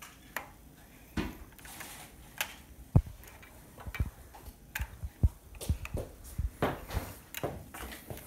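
Irregular light clicks, taps and knocks of small objects being handled, sparse at first and coming thicker from about three seconds in.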